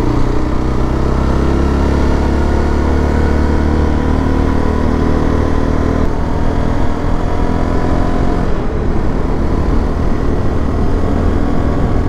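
Motorcycle engine running under way, mixed with wind and road rumble. The engine note sinks slowly over the first half as the bike slows, then turns to a rougher, steadier rumble.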